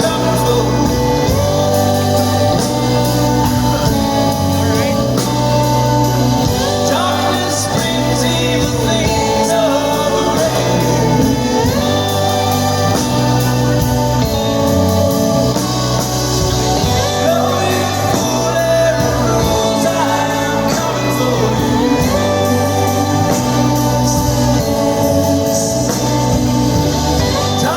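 Live band music with a lead vocal singing over sustained bass and guitar chords that change every couple of seconds.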